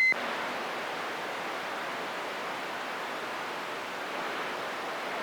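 Steady static hiss from a CB radio receiver on an open channel between transmissions, opened by a short beep as the last transmission ends.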